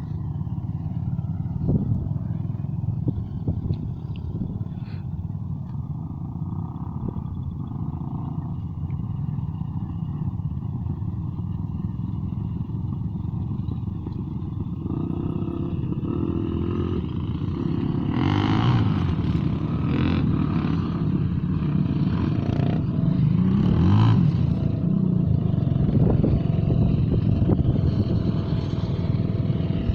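An engine running steadily under a dense low rumble, growing louder about halfway through.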